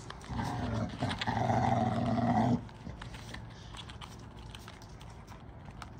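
Presa Canario bitch giving one long, low, rough cry from about half a second in until about two and a half seconds in, after which only faint rustling is heard.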